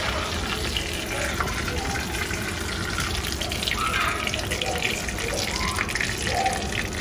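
A tempering of mustard seeds, dried red chillies and curry leaves sizzling and crackling in hot oil in a small pan, as it is spooned over a yellow curry.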